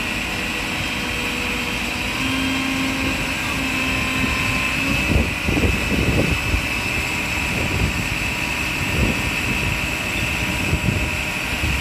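Fire engines' diesel engines running steadily, with a constant high whine over the engine noise; a few low thumps about halfway through.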